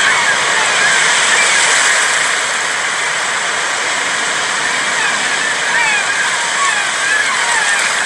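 Sea waves washing onto a beach, a steady rush of surf, with short high chirps recurring over it.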